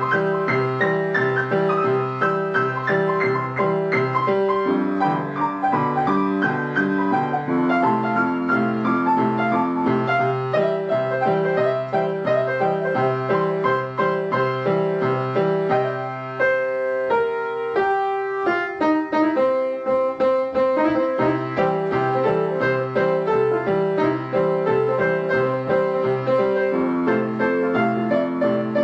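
Background piano music with a steady, bouncing alternating bass line, thinning briefly around the middle before resuming.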